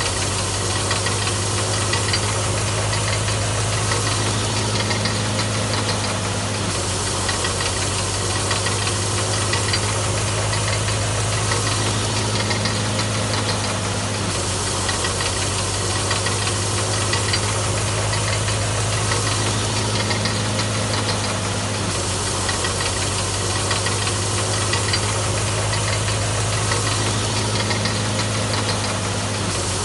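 Solar-powered electric grain thresher running steadily while threshing wheat: a strong low hum under a dense, continuous rattle of the drum and sieve.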